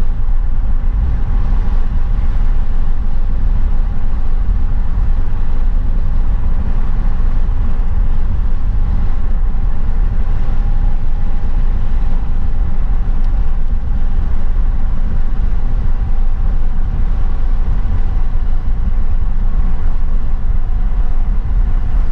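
Vehicle driving on an unpaved road, heard from inside the cabin: a steady, loud low rumble of tyres and engine.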